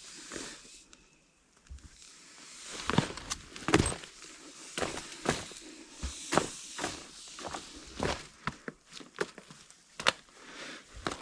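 A hiker's footsteps on a gorge trail: quiet for the first couple of seconds, then an uneven run of steps from about three seconds in.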